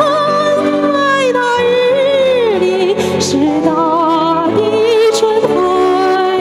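A woman sings solo through a handheld microphone over a backing track, holding long notes with vibrato; about two seconds in, a note slides downward before the melody picks up again.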